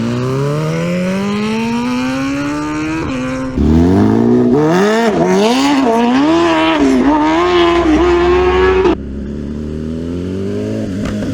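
BMW S1000RR inline-four engine revving hard, its note climbing steadily for about three seconds. It then turns louder, with the pitch swinging up and down through repeated revs, and breaks off suddenly about nine seconds in to another rising pull.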